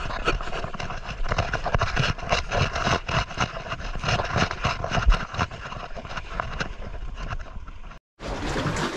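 Handling noise on a body-worn action camera as the wearer clambers over rough rock: irregular knocks, scrapes and rustles over a low rumble. It cuts out briefly about a second before the end.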